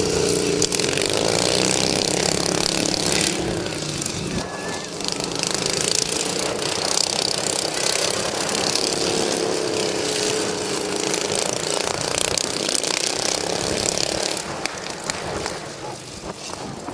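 Small engines of several racing lawn tractors running hard as they race past. The sound drops off somewhat near the end.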